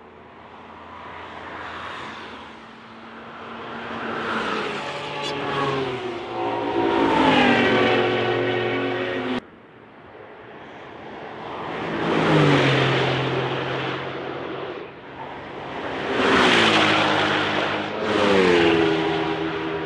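A string of cars passing at speed one after another. Each engine note swells as the car approaches and drops in pitch as it goes by. There is an abrupt cut about nine seconds in.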